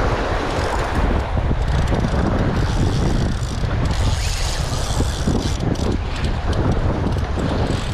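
Wind buffeting the microphone in a steady low rumble, over the wash of waves, with a stretch of brighter hiss between about three and five seconds in.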